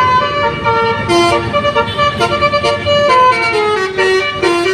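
Basuri-type telolet horn on an intercity bus playing a quick tune of stepped notes, the pitch jumping several times a second.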